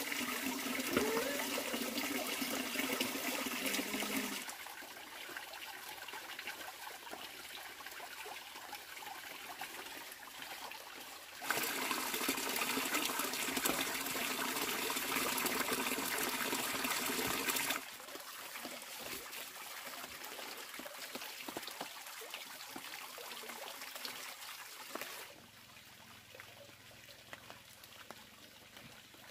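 Water running and trickling steadily. It drops in level a few seconds in, comes back louder around twelve seconds, and drops again around eighteen seconds, quieter still near the end.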